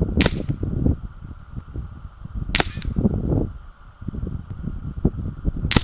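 Three shots from a .25-calibre Kral Puncher Breaker PCP air rifle with a shrouded barrel, fired about two and a half to three seconds apart, the last one at the very end, over a low rumble.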